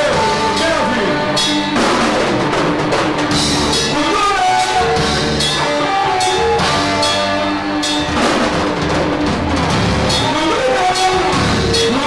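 Live rock band playing a heavy cover, drum kit prominent with bass drum and snare under a pitched melody line. The sound is loud and harsh, recorded right next to the PA speakers.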